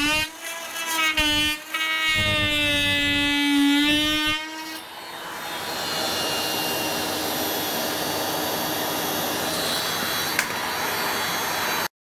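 Oscillating multi-tool cutting into the wood core of a fiberglass roof, a steady buzz that drops out twice briefly and then stops about four and a half seconds in. After that a dust extractor's steady hiss carries on until the sound cuts off suddenly near the end.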